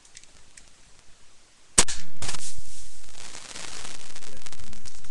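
A sharp crack, a second crack about half a second later, then a hiss lasting a couple of seconds.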